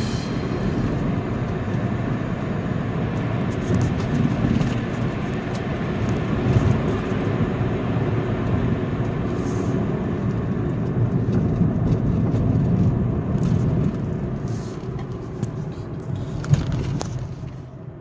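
Volvo S60 driving along a narrow road, heard from inside the cabin: steady tyre and engine noise with a few light knocks, easing off near the end.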